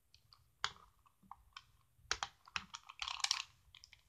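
Plastic Rubik's cube being twisted by hand: irregular clicking of its layers turning, a few scattered clicks at first, then a quick run of clicks about halfway through.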